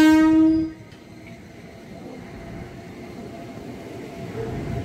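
KRL Commuter Line electric train, an ex-JR 205 series, sounding one short horn blast that cuts off under a second in, then running steadily as it pulls out.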